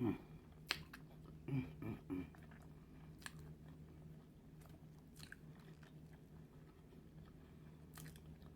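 A person eating close to the microphone: quiet chewing with scattered sharp wet mouth clicks and smacks, and a few short low hums in the first two seconds.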